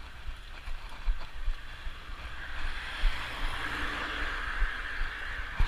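Wind buffeting the microphone of a moving mountain bike, with a rushing hiss that swells in the middle and eases off near the end.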